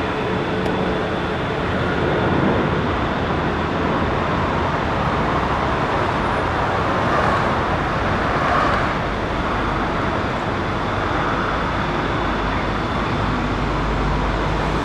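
Embraer ERJ-135LR regional jet's twin Rolls-Royce AE 3007 turbofans running on landing: a steady rush of jet noise with a thin, high, steady whine over it.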